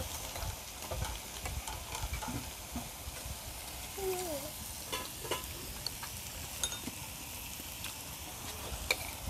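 Meat and vegetables sizzling steadily on a round tabletop grill plate, with scattered clicks of chopsticks against the grill and dishes.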